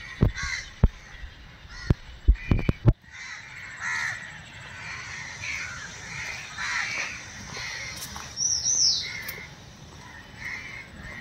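Crows cawing repeatedly, with a few sharp knocks in the first three seconds and a brief high two-note call from another bird about eight and a half seconds in.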